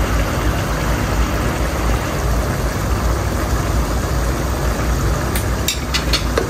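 Steady low rumble and hiss of a kitchen with keema cooking in a pot on a gas stove. Near the end come several sharp clicks as a wooden spoon stirs and knocks against the pot.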